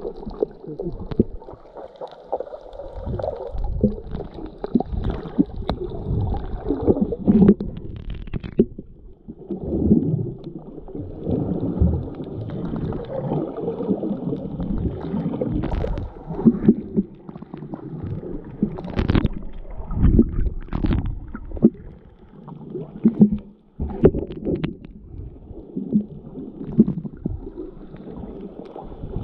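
Muffled water noise heard underwater: irregular sloshing and gurgling, mostly low-pitched, with scattered sharp knocks throughout.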